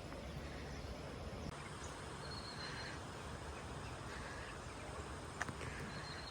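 Outdoor hillside ambience: a steady low rumble of wind on the microphone, with a few short high chirps and a single sharp click about five seconds in.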